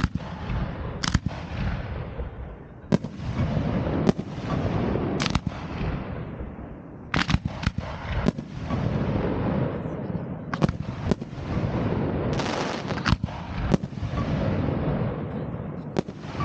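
New Year's Eve fireworks going off: a dozen or more sharp bangs, some in quick clusters, over a continuous rumble and crackle of rockets and shells.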